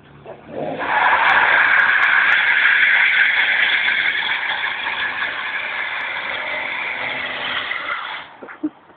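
Car engine revving hard and held at high revs while the tyres spin on wet concrete in a burnout, making tyre smoke. The revs climb about half a second in and cut off suddenly near the end.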